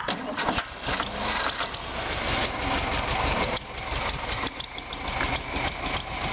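Air-cooled VW Beetle flat-four engine cranking and firing on a shot of starting fluid, running unevenly with a brief dip in the middle.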